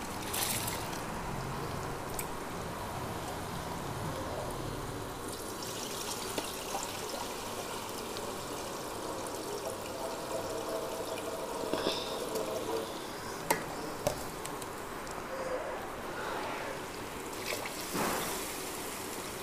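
Water sloshing and trickling as basmati rice is rinsed by hand in a steel bowl and the cloudy rinse water is poured off. Near the end, fresh water is poured from a jug onto the rice.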